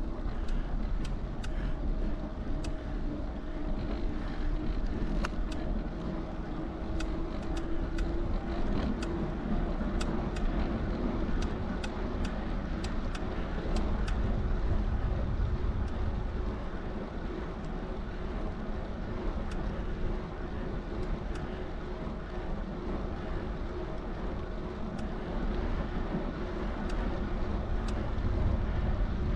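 Bicycle riding along, with wind buffeting the microphone and a steady rumble of rolling noise. A faint steady hum runs underneath, and scattered sharp clicks come through the first half.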